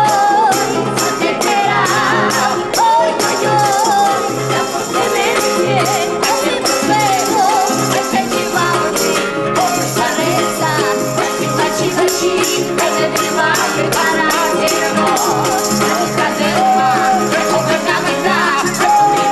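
Music with a steady beat, a clicking percussion pattern and a wavering melodic line.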